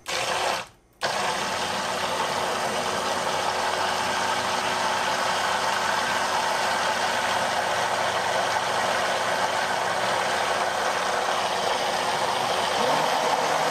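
KitchenAid 2-speed hand blender running steadily on speed 1 with its head held on the bottom of the jar, a constant motor whine over the churning of the blade in liquid. It is emulsifying egg and oil into mayonnaise. The motor starts about a second in after a brief break.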